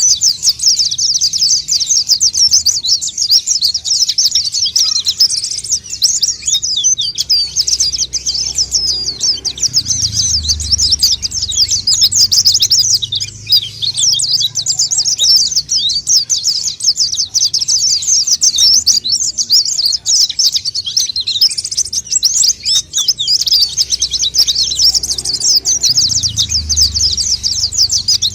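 White-eye (pleci) singing non-stop: a fast, high, unbroken twittering chatter.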